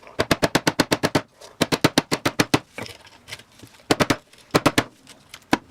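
Fast runs of sharp clicks from a hand tool working against a small camera's casing during disassembly: two bursts of about a second each, roughly ten clicks a second, then a few single clicks near the end.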